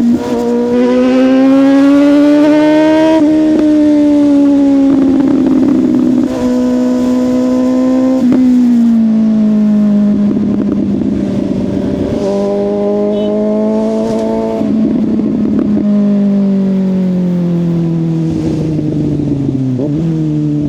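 Suzuki GSX-S750 inline-four engine through a Yoshimura exhaust, accelerating through the gears. Its note climbs and drops sharply at each shift several times, then falls steadily as the bike slows near the end.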